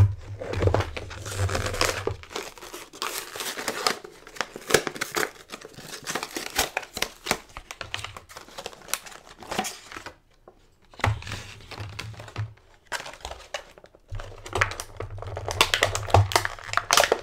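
Plastic toy packaging crinkling and crackling as it is handled and torn open, in stretches with a short pause about ten seconds in.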